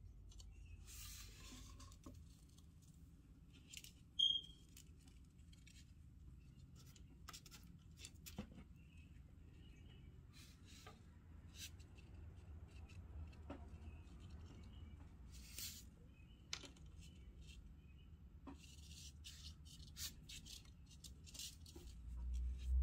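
Faint rustles and small clicks of hands handling nylon fishing line, small plastic beads and a plastic bottle-cap rig on a tabletop, with one short high squeak about four seconds in.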